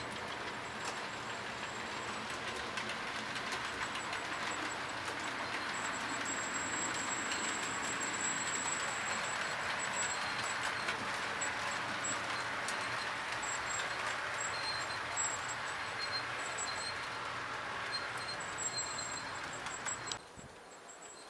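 HO scale model passenger train rolling along the track: a steady whirring rattle with faint clicks of the wheels over the rail joints. It grows louder toward the middle as the train passes close by and cuts off sharply near the end.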